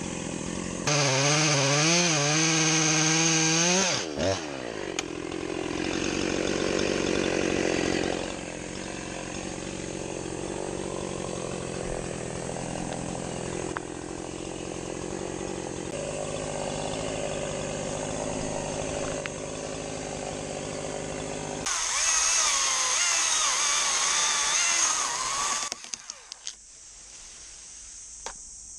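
Chainsaw revved high and cutting in two loud bursts, one near the start and one about three quarters of the way through, its pitch wavering under load. Between the bursts it runs at lower revs, and near the end it drops back to a quieter idle.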